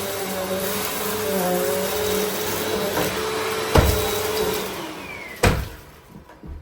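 Bissell CleanView compact vacuum cleaner running, then switched off. About two-thirds of the way in its motor whine falls in pitch and fades as it winds down, with two sharp thumps along the way.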